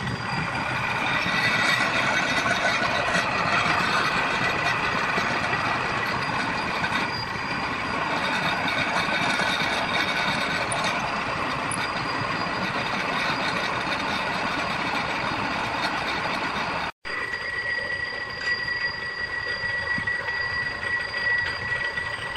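Drilling machine boring into a steel hub flange with a twist drill: a steady grinding cutting noise with a high metallic squeal. About 17 s in the sound breaks off abruptly and resumes as a thinner, steadier machine whine with one high tone.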